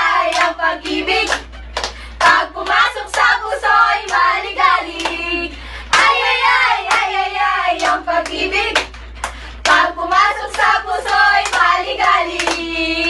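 A small group of young people singing loudly together and clapping their hands along, with sharp claps among the voices.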